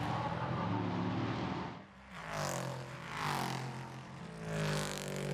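LMP3 prototype race cars' V8 engines at racing speed. The engine note drops briefly about two seconds in, then rises and falls in several swells as cars go by.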